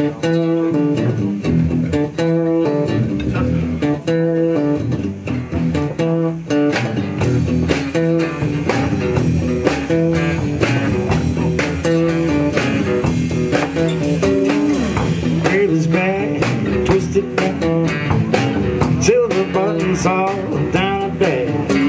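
A small band playing live on two acoustic guitars, electric bass and drum kit. The drums fill in about seven seconds in, and a man's singing voice joins in the last few seconds.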